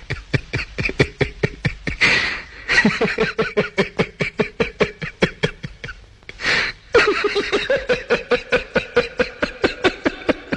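A man laughing hard in a rapid run of ha-ha pulses, about five a second, broken by loud gasping in-breaths about two seconds in and again past six seconds.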